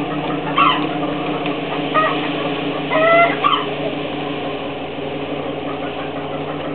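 Dodge Ram SRT-10's 8.3-litre V10 idling steadily. A few short high calls ring out over it, about half a second in, at two seconds and around three seconds, the last ones the loudest.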